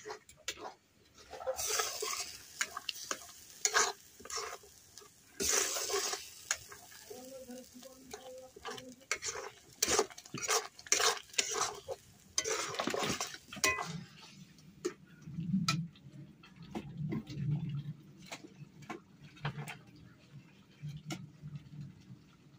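Metal spatula scraping and stirring a thick masala curry in an aluminium kadai, with the masala sizzling as it fries. Quick scraping strokes against the pan for about the first fourteen seconds, then only a few sparse clicks.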